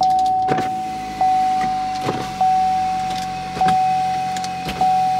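Car's warning chime dinging, a single steady tone struck five times about every 1.2 seconds, each ding fading before the next. A few soft knocks and rustles sit between the dings.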